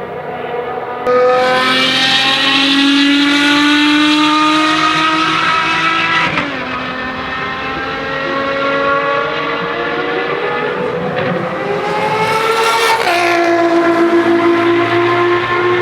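Ferrari FXX Evoluzione's V12 engine at full throttle, its pitch climbing as it revs. It gets suddenly louder about a second in, then the pitch drops sharply twice, about six seconds in and near thirteen seconds, as it shifts up a gear.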